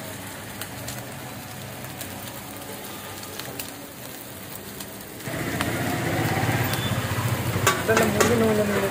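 Already-cooked chicken pieces sizzling gently in a little coconut oil in a steel wok, warmed rather than fried. About five seconds in, a louder steady noise comes in and holds.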